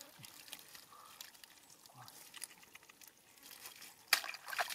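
Small fish and wet mud being handled in a plastic basket: faint wet crackling and squelching, with a louder sudden noise about four seconds in.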